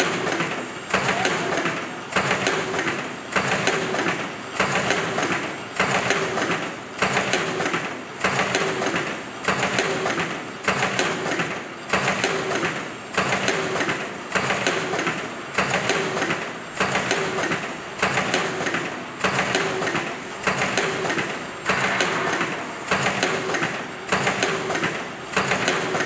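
Fully automatic flat face mask machine running through its production cycle, a rhythmic mechanical clatter that repeats about once a second.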